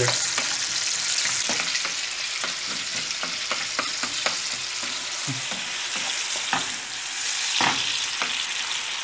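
Diced tomatoes sizzling in oil in a nonstick frying pan over high heat, a steady hiss as they soften and start to break down. A wooden spoon stirs them, scraping and tapping the pan with scattered clicks.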